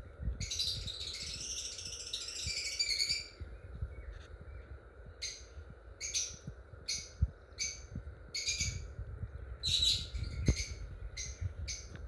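Caged lovebirds calling: a few seconds of dense, high chattering, then a run of short, sharp chirps repeated about every half second, over a low rumble with one knock about ten seconds in.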